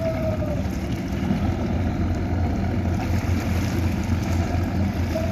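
Boat engines running with a steady low rumble that grows stronger through the middle, over wind on the microphone. A faint falling tone fades out about half a second in.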